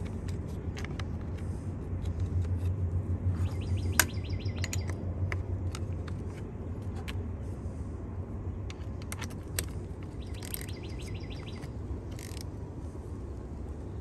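Socket ratchet clicking in short quick runs, with sharp metal clinks of tools on the battery terminal bolts as the old terminals are loosened. A steady low hum and bird chirps sit underneath.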